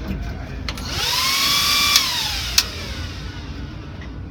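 Power tool motor spinning up, running for about a second, then winding down as the trigger is released, with a sharp click or two near the middle.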